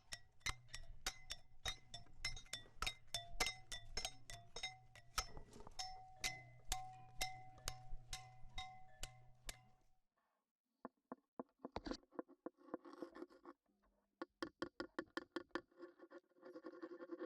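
A quick run of sharp pitched taps, about three a second, whose note shifts like a tapped-out tune. They stop about ten seconds in, and after a short silence come scattered clicks with scratchy rubbing.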